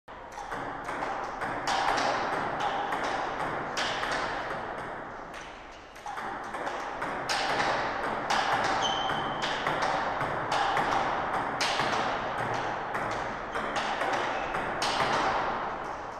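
Table tennis rally: the celluloid ball is struck back and forth by rubber-covered bats and bounces on the table, a quick series of sharp pocks, over steady background noise. A short high squeak comes about nine seconds in.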